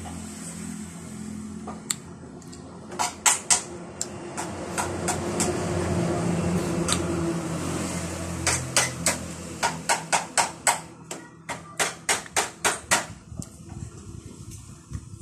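Close-up wet mouth sounds of someone eating santol: a quick series of sharp lip smacks and sucking clicks as the pulp is sucked off the seeds, in two runs, a short one a few seconds in and a longer one past the middle. A low background rumble swells and fades in between.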